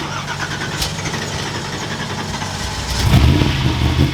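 An off-road race vehicle's engine is started: cranking noise first, then the engine fires and runs much louder from about three seconds in.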